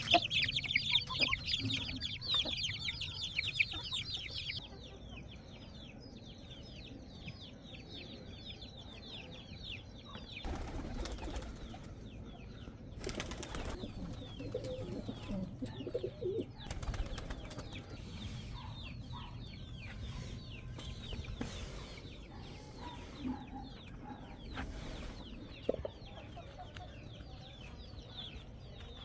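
A flock of small birds chirping busily and continuously, loudest in the first few seconds and thinner after. A few brief rustling bursts come through near the middle.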